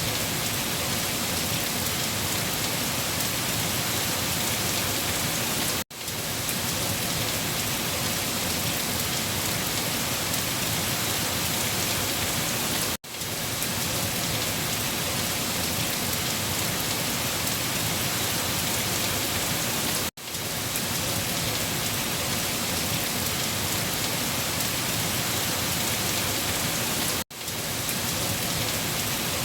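Heavy rain falling on leaves: a dense, steady hiss of drops. About every seven seconds the sound cuts out for a split second and quickly swells back.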